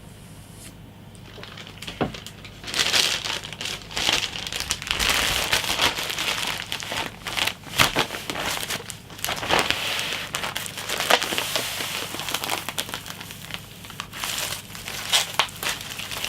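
Plastic packaging being crinkled and crumpled in the hands, starting after a single click about two seconds in. It then runs on as a dense crinkle with frequent sharp crackles.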